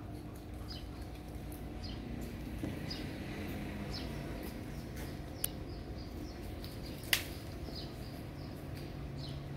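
A small bird chirping a short, high, falling note about once a second over a steady low outdoor hum, with one sharp click about seven seconds in.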